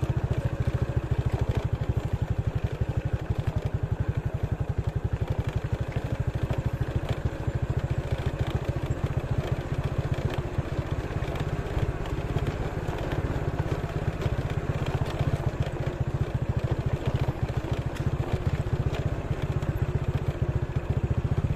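Small motorcycle engine running at a steady speed, its even rapid firing pulse unchanged throughout.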